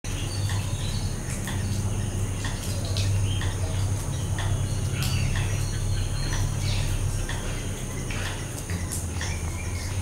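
Assorted wild birds chirping and calling in short notes, some sliding in pitch, over a steady low hum and a steady high-pitched drone.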